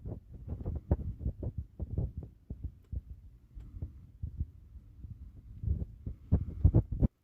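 Wind buffeting the microphone in irregular low gusts and thumps that cut off suddenly near the end.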